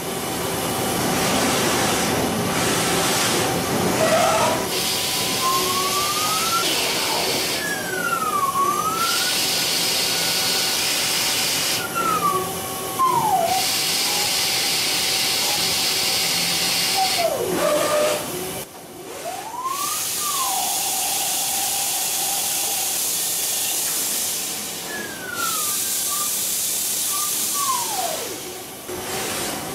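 Mazak Integrex i-100 Bartac-S multi-task CNC lathe cutting a steel bar: a steady hiss, with a motor whine that glides up and down in pitch several times.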